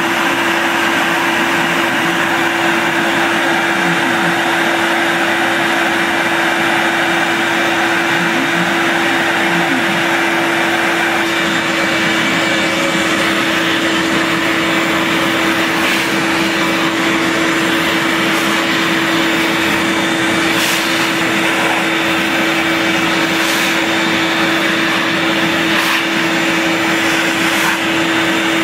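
Shop vacuum running steadily, sucking wood chips off a freshly CNC-routed plywood tray, with a few sharp clicks in the second half.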